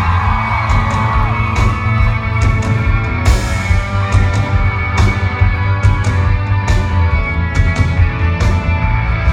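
Live rock band playing at full volume, with a heavy bass line, sustained chords and a steady beat of drum hits.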